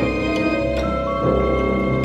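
Background music: sustained held tones with a few light percussive strikes.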